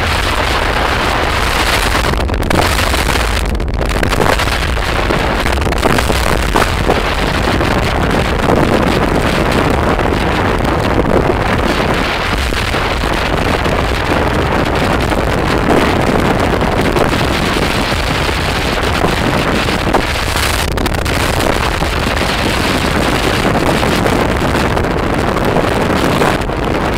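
Loud, steady wind rush buffeting a phone microphone on a moving motorbike, over the low rumble of the bike's engine and tyres on the road.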